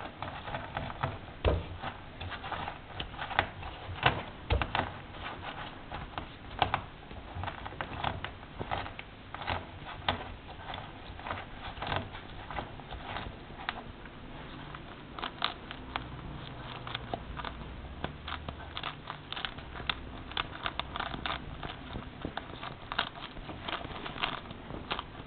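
Whole pomegranate pressed and rolled under the palm on a granite countertop: many small, irregular crackles and clicks as the seeds inside burst, with the rind rubbing on the stone.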